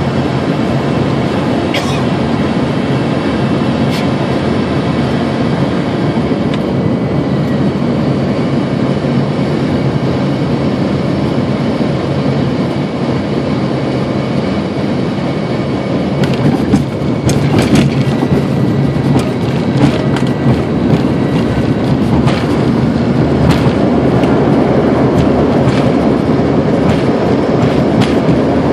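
Airliner cabin noise during landing: a steady engine and airflow roar on final approach, then about halfway through the touchdown, after which the wheels rumble and rattle with repeated knocks as the plane rolls down the runway. The noise grows louder over the last few seconds.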